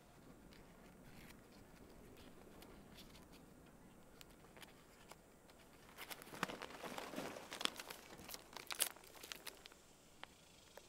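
Foil inner wrapper of a cigarette pack being torn open by hand, crinkling. A few faint crackles come first, then a dense run of crackling about six seconds in that lasts roughly three seconds.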